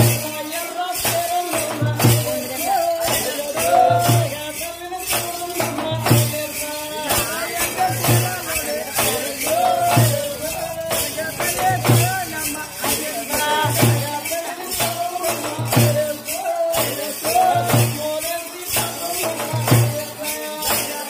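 Teenmaar drumming: a fast, driving beat of dappu frame drums with rattling jingles and deep strokes in a regular repeating cycle, with a wavering melody line over it.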